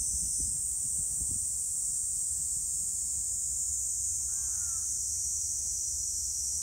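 Steady high-pitched buzzing of insects. A few low rustles come in the first second and a half, and one short call comes about four seconds in.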